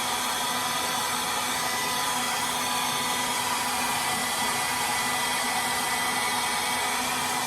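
Handheld hair dryer running steadily: a rush of blown air with a steady high whine.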